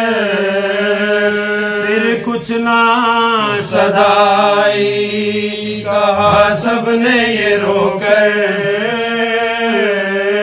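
Men's voices chanting a marsiya unaccompanied, in long drawn-out notes with wavering ornaments over a steady held low note.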